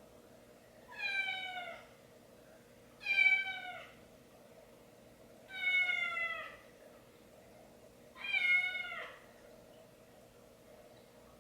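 A cat meowing four times, about every two and a half seconds, each meow falling in pitch.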